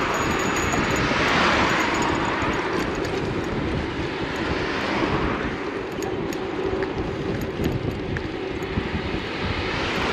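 Road traffic going by close at hand: several cars and a small truck pass one after another, their tyre and engine noise swelling and fading as each goes by, over a constant low rumble.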